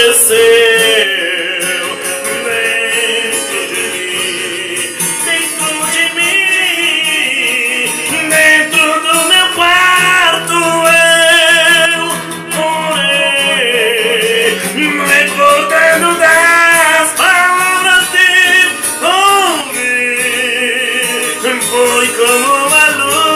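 A man singing a hymn in Portuguese with wavering held notes, accompanying himself on a nylon-string classical guitar.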